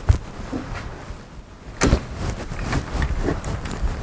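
Cleaning rod with a patched jag sliding through an AR-15 barrel by way of a bore guide: rasping strokes with a knock at the start and a sharper one just under two seconds in, as patches are run through until they come out clean.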